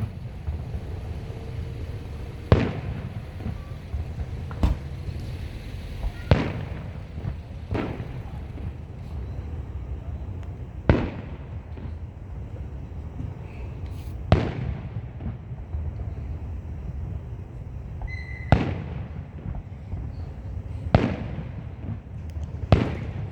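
Aerial fireworks shells bursting at a public display. About nine sharp bangs come every couple of seconds, each trailing off in a short echo, over a steady low rumble.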